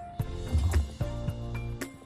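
Background music of sustained instrument notes, with a low thud about half a second in.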